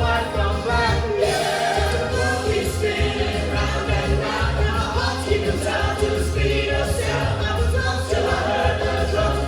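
Upbeat song with a group of voices singing over a steady bass beat.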